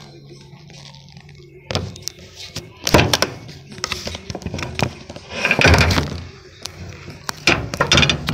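Kitchen clatter of cookware: a few sharp knocks and thuds, about two and three seconds in and again near the end, with a longer noisy rush just past the middle, as bamboo shoots and bean sprouts go into the pan to sauté.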